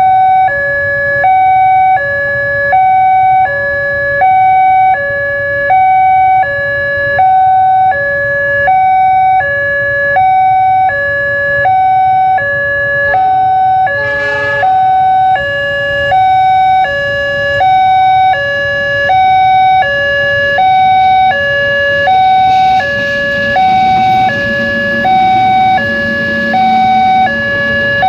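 Railway level-crossing alarm from the crossing signal's loudspeaker: an electronic two-tone ding-dong, high and low tones alternating about once a second, sounding while the barrier is down for a train. In the last few seconds the rumble and hiss of the passing train's diesel locomotive grow beneath it, and the alarm cuts off right at the end.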